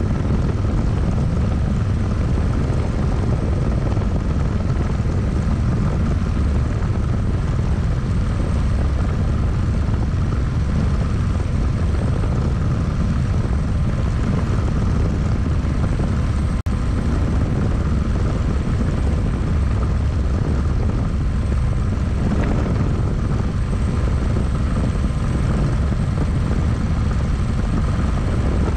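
Single-seat turbine-powered experimental helicopter in flight, heard from inside the cockpit. A steady, loud low rumble runs throughout, with thin steady whining tones above it.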